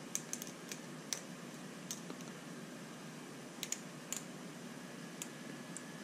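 Small parts of an RC crawler shock absorber clicking and ticking as they are handled and fitted together by hand: scattered light clicks, a cluster in the first second and a few more around four seconds in, over faint steady room noise.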